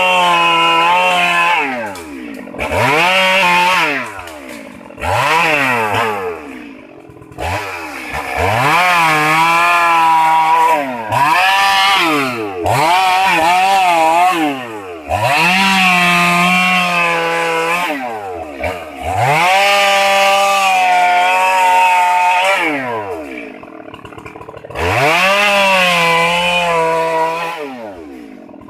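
Stihl MS 382 two-stroke chainsaw revved to full throttle in about seven bursts, each dropping back to idle, while cutting cashew wood. The pitch wavers in the longer bursts.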